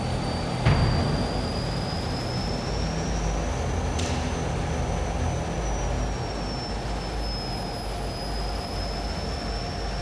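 Aero L-29 Delfin's single turbojet engine running steadily: a high whine over a rush of jet noise, the whine's pitch drifting slightly up and down. Two short clicks are heard, a little under a second in and again about four seconds in.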